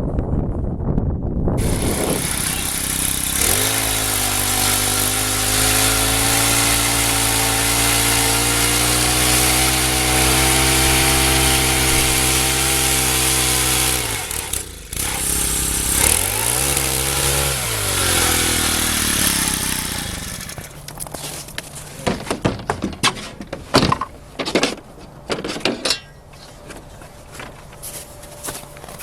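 A small engine revs up about three seconds in and is held at a steady high speed for about ten seconds. It drops briefly, revs up and down once more, then stops about twenty seconds in, leaving scattered knocks and footsteps.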